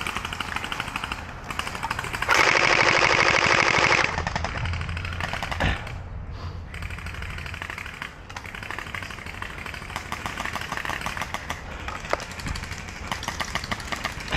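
Electric gel blasters firing in full-auto bursts, a rapid rattle of shots. About two seconds in, a louder buzzing burst from a blaster close by lasts under two seconds.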